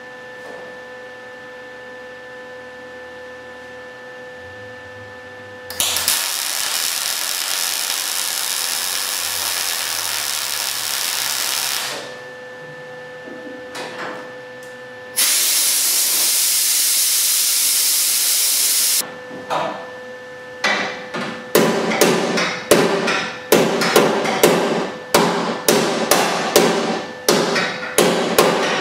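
A MIG welder lays two welds on the sheet steel of a 1972 Camaro's package tray extension, each a steady crackling hiss, the first about six seconds long and the second about four. About two-thirds of the way in, a body hammer starts striking the metal in quick succession, about two blows a second.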